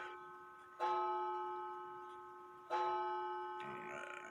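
A clock striking the hour: two slow strokes about two seconds apart, each ringing out and fading slowly. A faint short rustle near the end.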